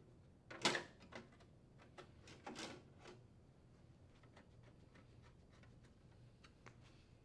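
Faint clunks and clicks of a sheet-metal access cover being fitted onto a heat pump's control box: one louder knock just under a second in, a few more around two to three seconds in, then only light scattered ticks.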